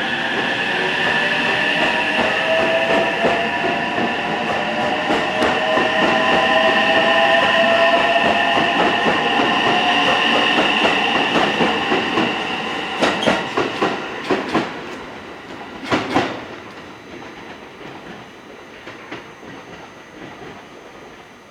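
Electric train pulling away: a motor whine rising slowly in pitch as it accelerates, over steady clatter of wheels on rail joints. A cluster of sharp clacks comes about two-thirds through, then the sound fades away.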